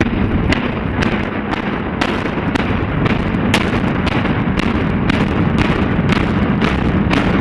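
Demolition charges in a stadium grandstand implosion detonating in a rapid series: sharp bangs about twice a second over a continuous rumble, starting abruptly.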